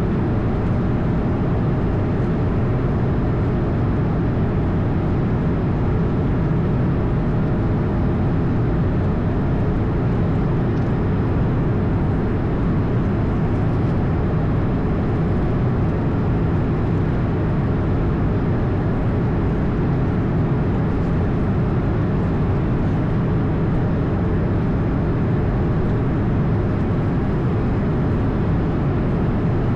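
Steady engine and airflow noise heard inside an Airbus A220 in flight, a constant low rumble with a faint steady whine.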